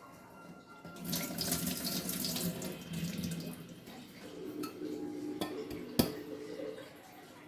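Kitchen tap running into a sink as tulsi (holy basil) leaves are rinsed, the water loudest for the first few seconds and then softer. One sharp knock about six seconds in.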